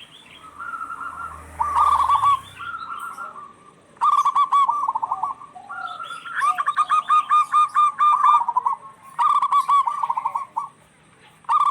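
Local zebra doves (perkutut) calling back and forth: bouts of rapid, rolling coos a few seconds apart, with two birds overlapping in a longer bout around the middle.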